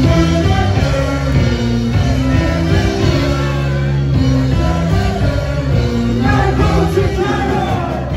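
A live band playing upbeat rock music with a singer, recorded from within the audience.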